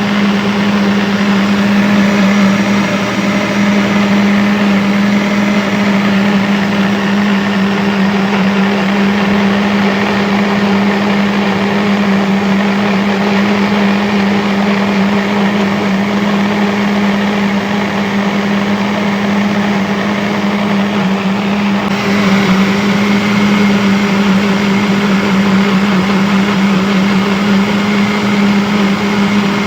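Electric kitchen blender running steadily at one speed: a constant motor hum under a whirring noise. About two-thirds of the way through the tone turns slightly brighter, then carries on unchanged.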